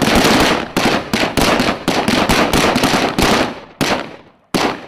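Volley of gunfire at a shooting range: a rapid, uneven string of shots, about five or six a second, for about three and a half seconds, then two single shots near the end.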